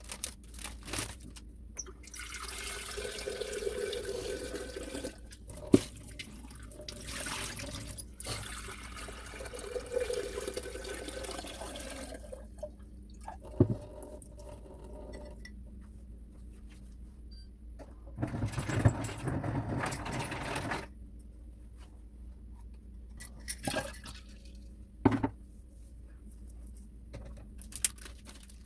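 Water running or pouring in several bursts of a few seconds each, with a few sharp knocks in between.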